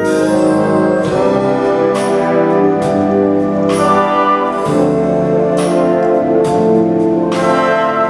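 Concert wind band playing: full sustained brass chords, with sharp accented hits coming several times, roughly once a second.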